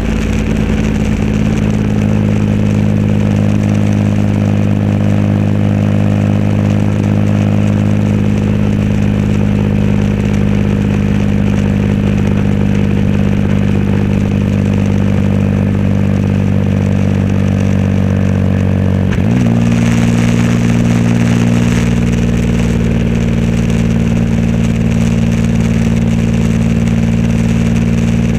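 Triumph Rocket 3 Roadster's 2.3-litre three-cylinder engine running through a custom exhaust at a steady cruise. About two-thirds of the way through, the engine note rises quickly and settles at a slightly higher steady pitch as the throttle is opened.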